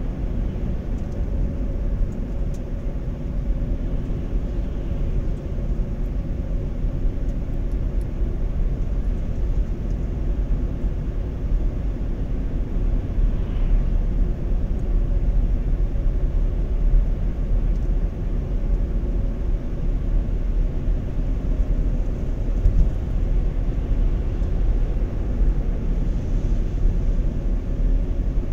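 Steady car noise heard from inside the cabin while driving at road speed: a low rumble of tyres and engine with a faint engine hum.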